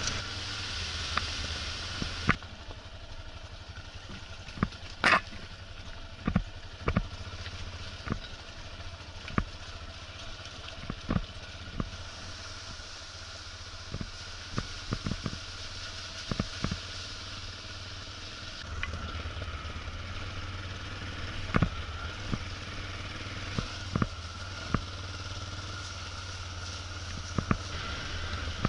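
Motorcycle engine running steadily at low revs while the bike rides over a rough stony dirt track, with frequent irregular knocks and clatter from the bumps. A louder hiss covers the first two seconds.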